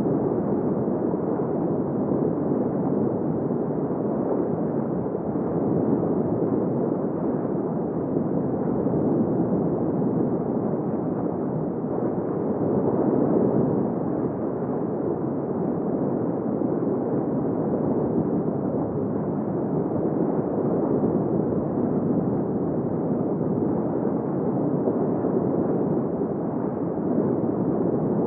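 Underwater seabed ambience of crustaceans: a dense, steady crackle of many tiny clicks and pops.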